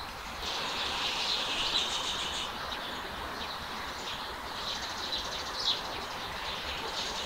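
Small birds chirping and twittering, high-pitched and busy in two spells, over a steady outdoor background hiss.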